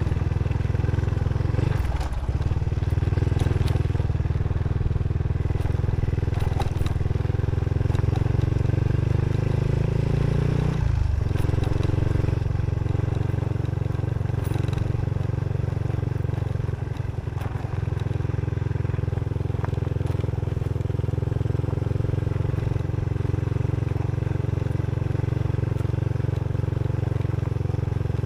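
Motorcycle engine running as the bike is ridden. It dips briefly about two seconds in, climbs steadily in pitch for several seconds, then drops suddenly about eleven seconds in, as at a gear change, and runs on steadily.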